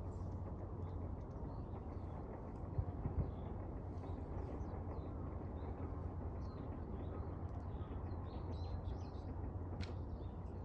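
Small birds chirping and tweeting in short, scattered calls over a steady low rumble, with two brief knocks about three seconds in.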